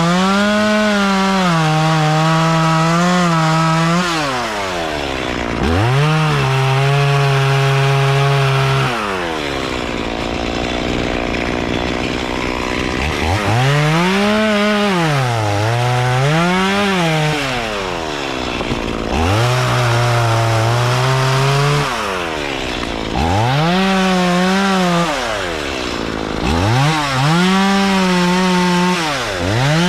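Chainsaw running at high revs and cutting wood, its pitch sagging under load and dropping sharply each time the throttle is let off, then revving back up, several times over.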